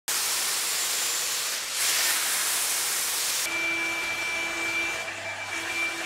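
Dyson Airwrap hot-air styler with its smoothing brush attachment blowing air: a loud, even rushing hiss. About halfway through the sound cuts abruptly to a quieter blower with a steady whine in it.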